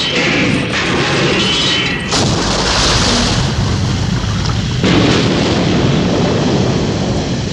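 Vintage sound-library explosion effects on miniatures: a continuous rumbling blast, with new explosions breaking in about two seconds and again about five seconds in.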